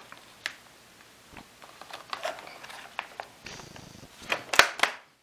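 Plastic vacuum-sealer bag rustling and crinkling as it is handled and fed into the slot of a countertop vacuum sealer, with scattered light clicks and knocks against the machine. Near the end comes a quick run of loud sharp clicks and knocks, then the sound stops.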